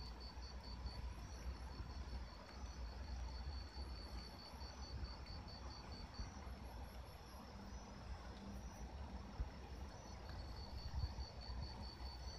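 Cricket-like insects chirping in a fast, even pulse of about five chirps a second, pausing for a couple of seconds past the middle, with short groups of higher, thinner chirps now and then. A low rumble runs underneath.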